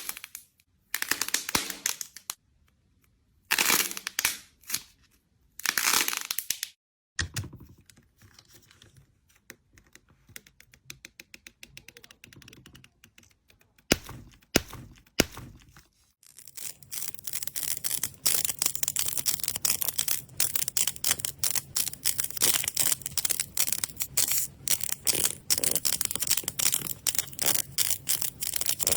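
Slime being handled and squeezed, giving crackling, crunching and popping sounds: a few separate crunches first, then a run of fine rapid clicks, and from about halfway on a dense, continuous crackle.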